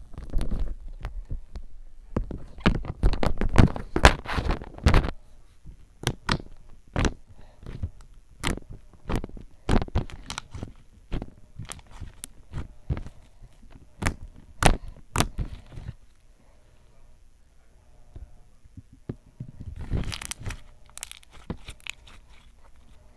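Thick homemade glue slime being poked and squeezed by hand, giving a quick run of sharp clicking and crackling pops. It goes quieter for a few seconds past the middle, then crackles again briefly near the end.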